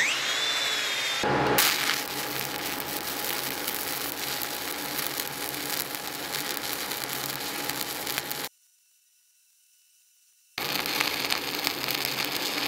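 Stick (SMAW) welding arc crackling and hissing steadily as a 7018 rod runs a fill pass on a 2G groove plate. It opens with a brief rising whine as an angle grinder spins up. The arc sound cuts out for about two seconds, then picks up again.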